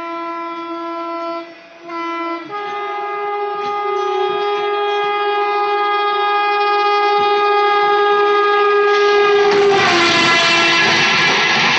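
An Indian electric locomotive's horn blowing long blasts as it approaches. There is a short break near the start, and about two and a half seconds in it steps up to a higher note, held for several seconds. Near the end the horn's pitch drops as the locomotive passes, and the rushing noise and clatter of its coaches going by on the adjacent track takes over.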